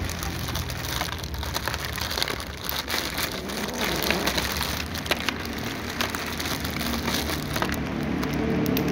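A cat crunching dry kibble at close range, with many short irregular crackling clicks from the chewing and the crinkle of the plastic food bag.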